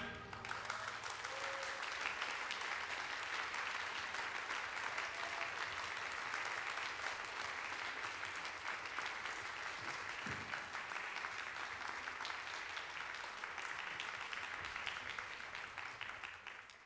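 Audience applauding steadily, the clapping fading away near the end.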